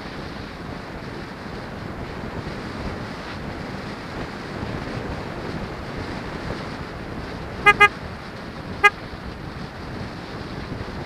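Steady rush of wind on the microphone of a moving bike. Three short, single-pitched horn beeps cut through it: two quick ones, then a third about a second later.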